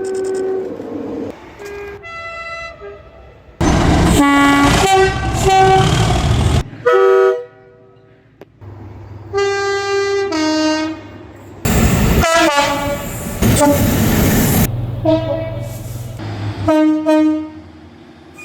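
Train air horns sounding in a run of separate clips that cut abruptly from one to the next: held horn blasts, some short toots, and in two stretches the horn over the loud rush and rumble of a train passing close by.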